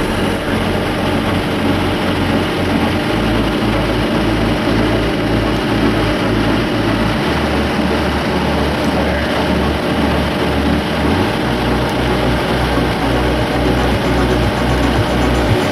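Tow truck's engine running steadily as it powers the winch pulling a pickup out of mud.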